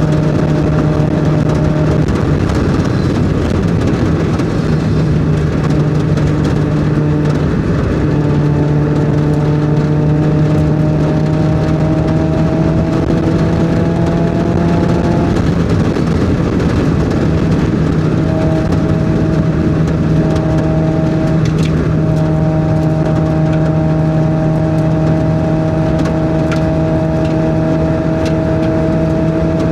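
Mazda Miata's four-cylinder engine running hard on track, its note climbing slowly, dipping sharply about halfway through, then climbing slowly again, with a steady rush of noise underneath.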